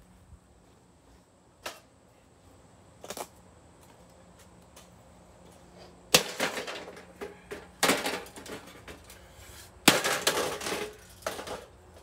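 A toaster oven being smashed: three loud crashes about two seconds apart, each followed by a short rattling clatter, after two faint knocks earlier on.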